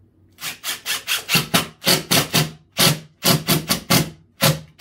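A wood screw being driven into two stacked wooden boards: a run of short scraping rubs, about three a second, with brief pauses between groups.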